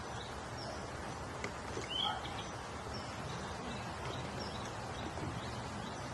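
Outdoor background noise with small birds chirping faintly and repeatedly, one chirp a little louder about two seconds in.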